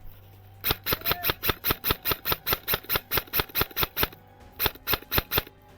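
Airsoft rifle firing a quick string of shots, about six a second, for about three and a half seconds, then four more after a short pause near the end. Each shot is a sharp, close click.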